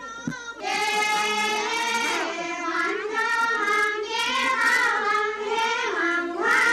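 Children singing a slow melody with long held notes, beginning about half a second in.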